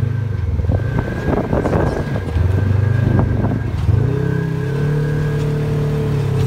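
Engine running with a DuraClutch fitted, giving a thin steady high-pitched belt squeal over uneven clattering. About four seconds in, the engine speed rises a little and holds, and the squeal fades.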